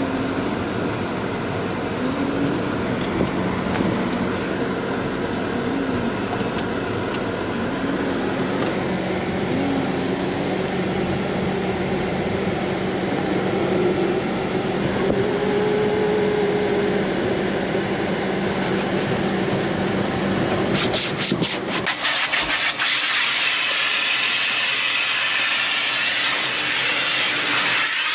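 Car wash machinery running with a steady hum, then about 21 seconds in a loud, even hiss starts, as of a high-pressure water spray.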